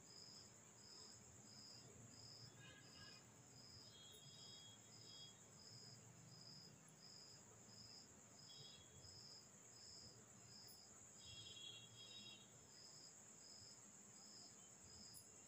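Near silence with faint insect chirping, about one and a half chirps a second, held steady over a high continuous trill. A few faint short chirps come and go.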